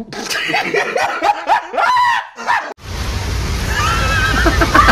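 High-pitched voices squealing and laughing in play, in a rapid string of short rising-and-falling calls. After nearly three seconds they stop abruptly, giving way to steady background noise with a voice faintly behind it.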